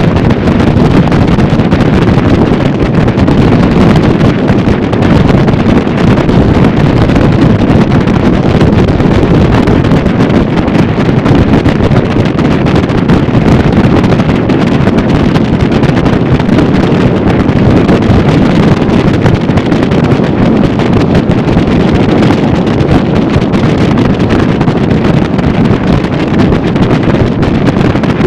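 Steady, loud wind rush over the microphone of a bow-rider motorboat running at about 40 mph. The boat's motor and the hull's rush through the chop are mixed in underneath.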